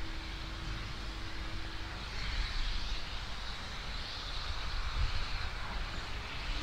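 Steam locomotive working, a low rumble with a faint steady whistle-like tone that stops about two seconds in, after which a steady hiss comes up.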